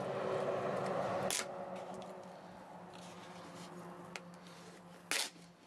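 Plastic wrap being peeled off a wooden drum shell: a rasping tear that cuts off suddenly about a second in, then light crackles and one sharp snap near the end.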